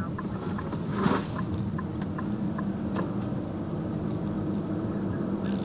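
Vehicle engine idling with a steady low hum, a brief rush of noise about a second in, and faint short ticks.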